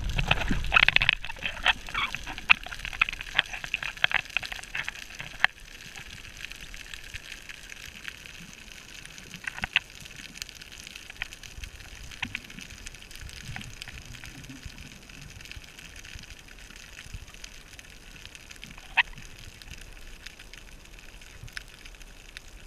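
Underwater ambience picked up by the camera: a steady hiss with scattered sharp clicks and crackles, dense and loud in the first five seconds and then only now and then, and a faint low gurgling rumble partway through.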